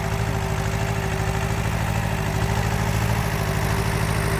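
Massey Ferguson tractor engine running steadily, with a fast even low pulse.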